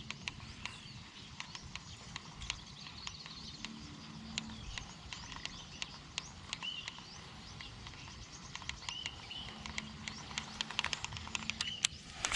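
Outdoor ambience: short bird chirps now and then over a steady background, with many irregular sharp clicks.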